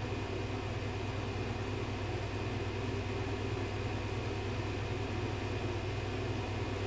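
Steady low hum with a faint even hiss: constant background room noise, with no distinct sounds over it.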